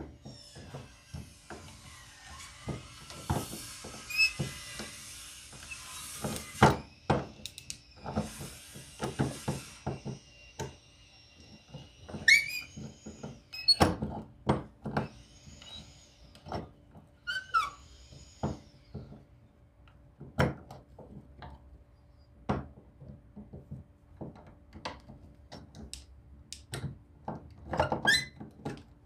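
Workshop handling of an antique hand plane and tools: a long run of irregular clicks and knocks, with two stretches of scratchy hiss in the first half and a few short squeaks in the middle.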